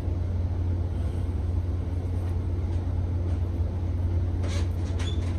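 A steady low hum of some running machine or appliance, with a few faint soft ticks near the end, like handling sounds.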